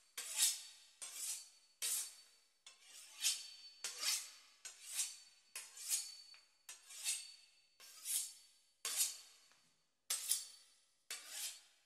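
Knife sawing through the crisp pastry crust of a beef Wellington: short, sharp rasping strokes, about one a second.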